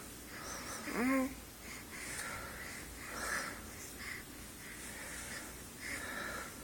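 Snuffly breaths and sniffs, about one a second, from someone who has been sneezing. About a second in there is a short squeak-like voiced sound that rises in pitch, the loudest moment.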